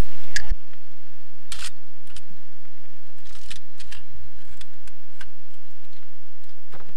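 Camera shutter clicks: about ten short, sharp clicks spaced irregularly, over a steady low hum.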